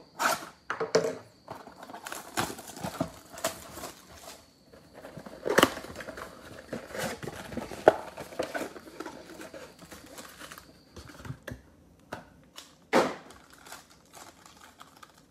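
Plastic wrap torn and crinkled off a cardboard trading-card box, then the box opened and foil card packs handled, making irregular crackles with a few louder snaps.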